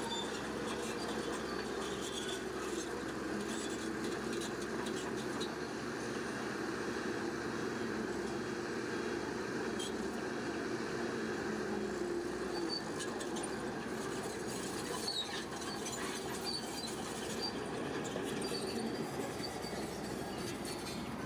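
Heavy earthmoving machinery running steadily, a continuous diesel engine noise.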